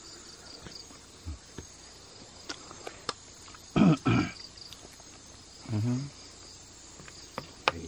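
Crickets chirping steadily in the night air, with a man's short vocal sounds about four seconds in and again near six seconds.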